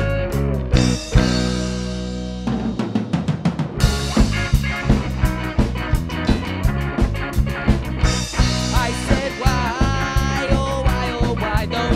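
Rock band with two electric guitars and a Ludwig drum kit playing a song. A chord is held ringing near the start, then the drums come back in with a fast, steady beat about four seconds in, and a bending lead line enters near the end.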